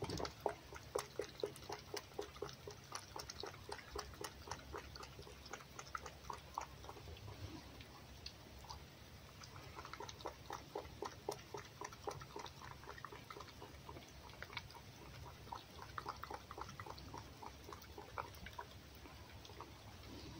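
Fox eating egg from a plate: a steady run of small wet chewing and lapping clicks, a few a second.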